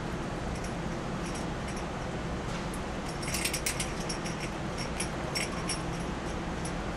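Light metallic jingling and clicking: a short burst about three seconds in, then a few scattered clicks, over a steady low room hum.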